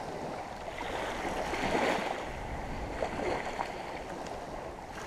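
Water washing and sloshing in shallow surf, swelling and easing a couple of times.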